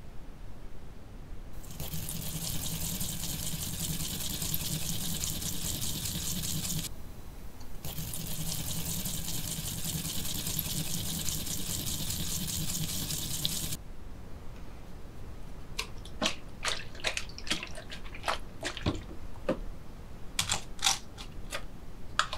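Fresh ginger rubbed on a ceramic grater plate: two long stretches of fast, fine rasping, with a short break about seven seconds in. From about fourteen seconds, a run of separate sharp clicks and taps as a plastic jug is handled.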